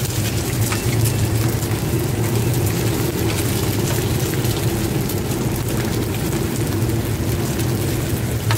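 Oil sizzling and crackling in a wide pan as cubes of rice-flour cake and egg deep-fry, turned with a metal spatula, over a steady low rumble.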